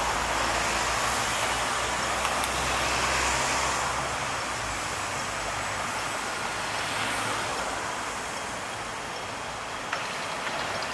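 City street traffic: a steady wash of vehicle and tyre noise, with a low engine hum close by for the first four seconds or so that then fades.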